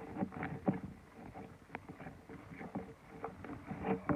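Slime being stirred in a dish as it thickens with added activator: irregular sticky clicks and squelches.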